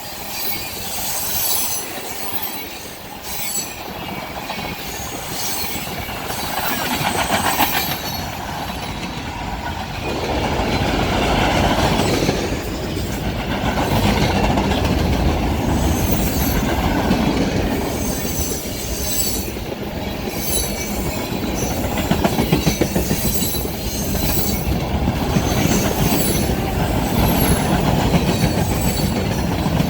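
Freight train rolling past on the rails, with steady rumble and clatter and high-pitched squeals from the wheels. It gets louder about a third of the way through.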